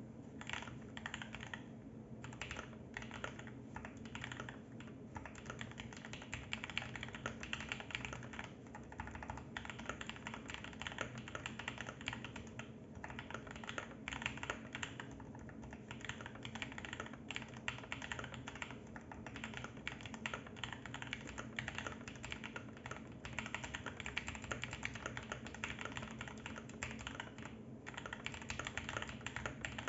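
Fast, continuous typing on a Geeky GK65 65% mechanical keyboard, with a few short pauses. The keyboard has lubed Huano GranVela Red linear switches and lubed, plumber's-tape-modded stabilizers, a steel plate, silicone-filled and foam-lined bottom housing, PCB tape and foam mods, and Cherry-profile keycaps.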